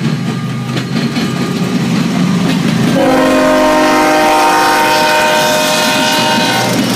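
Diesel locomotives of a BNSF freight train rumbling past at close range. About three seconds in, a multi-chime locomotive air horn sounds one long blast of about four seconds, stopping just before the end.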